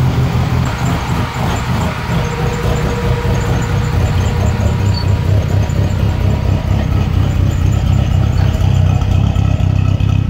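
Car engine running with a loud, low, uneven exhaust rumble, then shut off near the end.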